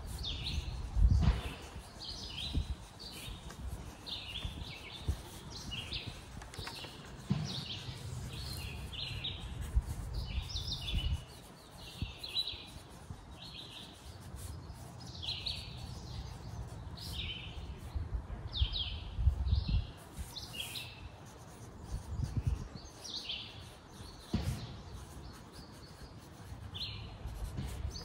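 Wild songbirds chirping over and over in short, quick calls, over a steady low rumble with a few louder low thumps, the strongest about a second in.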